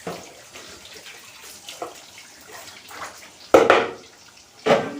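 Water splashing and trickling, with two louder splashes about three and a half and nearly five seconds in.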